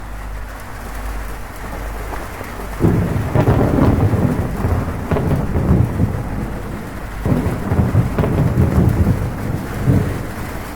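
Steady heavy rain on a zinc roof, with rolling thunder that breaks in suddenly about three seconds in, rumbles low and deep, eases briefly around seven seconds and swells again.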